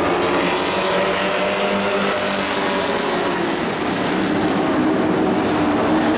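Several dirt-track race trucks' engines running hard as the field circles the oval, a steady loud drone of overlapping engine notes whose pitches drift slightly.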